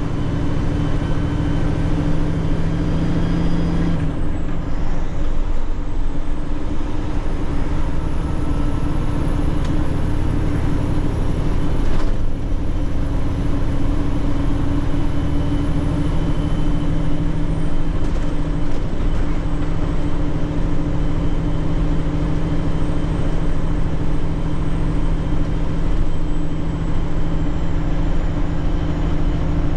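Tanker truck's diesel engine and road noise heard inside the cab, a steady drone while driving. The engine note changes about four seconds in, and there is a single sharp knock about twelve seconds in.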